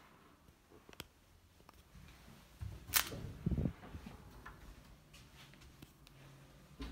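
An interior door opening and shutting, with a sharp latch click about three seconds in and low thuds around it; faint clicks otherwise.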